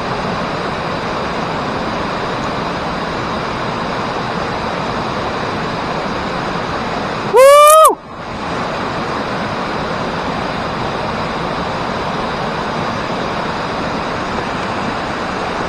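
Steady rush of a creek's flowing water. About halfway through, a man gives one short, loud shout of 'woo!'.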